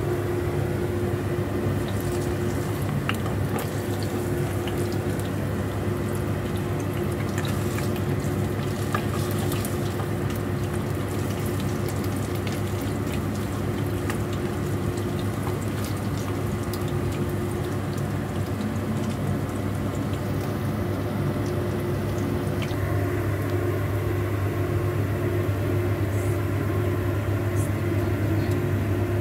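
Pork patties frying in shallow oil in a pan, sizzling with scattered crackles and pops, over a steady low hum that grows a little stronger near the end.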